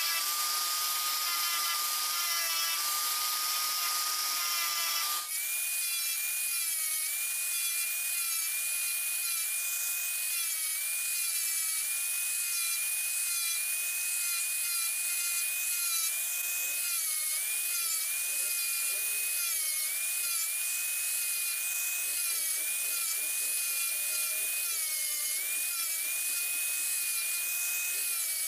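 Angle grinder with a sanding disc running with a steady high whine as small wooden sticks are sanded against it, the pitch dipping slightly now and then as the wood is pressed in. About five seconds in the whine breaks off briefly and comes back at a higher pitch.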